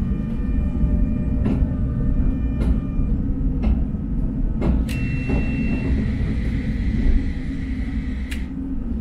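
Tram running along the track, heard from on board: a steady low rumble of wheels on rails with occasional sharp clicks, and a brief high-pitched tone about five seconds in.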